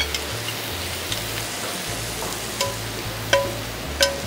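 Metal tongs clinking against an aluminium sauté pan and a ceramic bowl as seared Brussels sprouts are scraped out of the pan, over a steady sizzle from the hot pan. There are several sharp clinks with short ringing, the loudest a little after three seconds and at four seconds.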